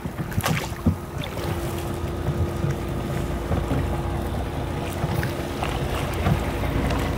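Small wooden rowboat being rowed: oar splashes and irregular knocks over water noise and wind on the microphone, with a steady hum joining about a second and a half in.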